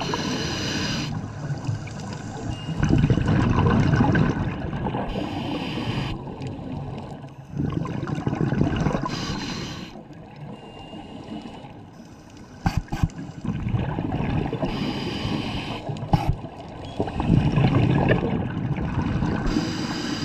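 Scuba diver breathing through a regulator underwater: a hissing inhalation, then a low rumble of exhaled bubbles, repeating about every five seconds. A couple of sharp clicks come around the middle.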